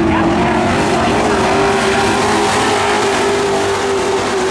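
Dirt-track racing trucks' engines running hard around the oval, a loud steady engine drone with a slight waver in pitch.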